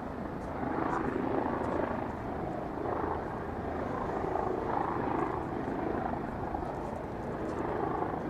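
Steady outdoor city din, a continuous rumbling wash of noise that swells and eases slightly, with a few faint ticks.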